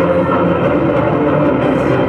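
Loud backing music with steady held tones.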